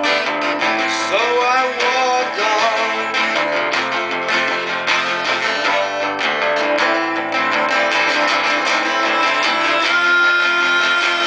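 Acoustic guitar strummed steadily, playing a song.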